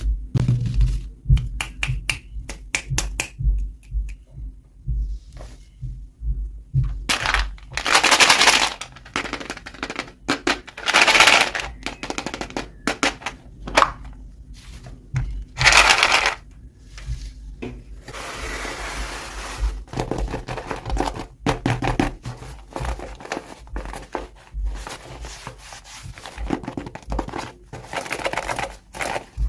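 Hands unwrapping toy packaging: plastic crinkling and rustling with many small clicks, taps and scrapes, and three louder rustles about eight, eleven and sixteen seconds in.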